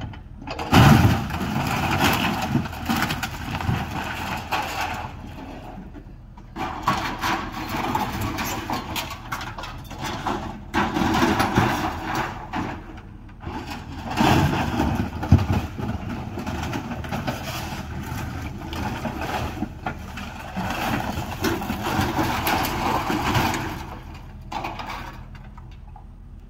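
Excavator engine running while the machine tears into a wrecked metal-clad building: sheet metal and timber crunching and clattering in three long spells with short lulls between them.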